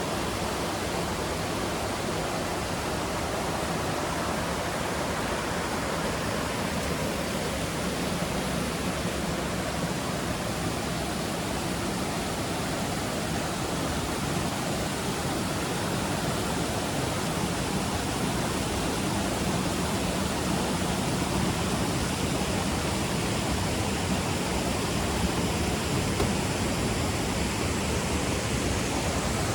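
Steady rushing of water from a jungle stream or waterfall, an even roar that grows slightly louder in the second half.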